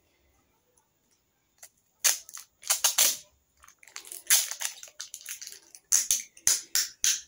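Adhesive tape being pulled off its roll and wrapped around a broom handle, in a series of short, sharp tearing rips starting about two seconds in.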